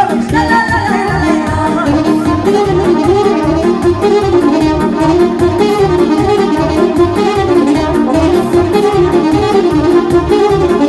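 Live Romanian lăutari dance music: a saxophone plays a fast melody over a quick, steady bass beat.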